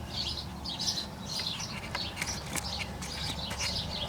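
Small birds chirping, several short high chirps a second.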